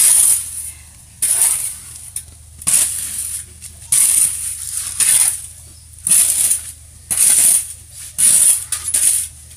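A metal shovel scraping across a concrete floor as it turns a heap of wet, dark material, in repeated strokes about once a second.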